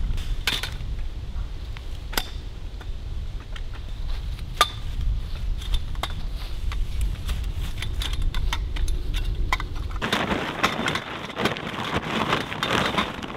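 Tent pole sections knocking and clicking as they are pulled apart and put down on leaf litter, with wind rumbling on the microphone. About ten seconds in comes a spell of dense rustling as the poles are slid into a fabric pole bag.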